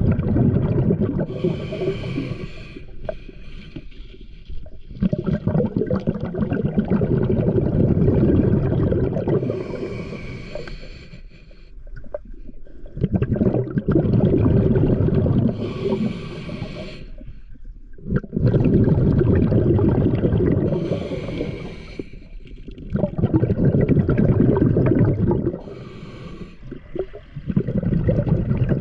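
Scuba diver breathing through a regulator underwater: exhaled bubbles bubbling for two to four seconds at a time, each cycle with a short hiss of the regulator, about six breaths in a regular rhythm.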